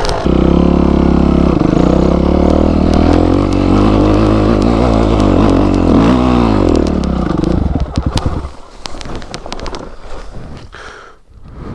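Motorcycle engine revving hard under load, climbing off-road, for about eight seconds. Its pitch dips and picks up again once near the end. Then it drops away, leaving scattered knocks and clatter.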